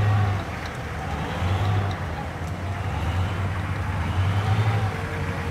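Tracked armoured vehicle driving over sand: a low engine and running-gear rumble that swells and fades, with a wavering squeal over it.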